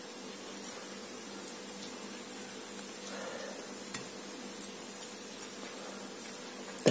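A few light clicks of a metal fork touching a white ceramic plate of fritters, over a steady low background hiss and hum.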